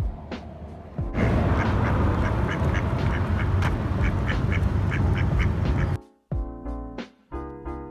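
Mallard ducks quacking repeatedly over a loud low rumble, for about five seconds, with background piano music before and after.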